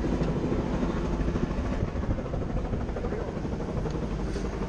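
Helicopter running near an offshore oil rig, a steady low rumble with a fast flutter.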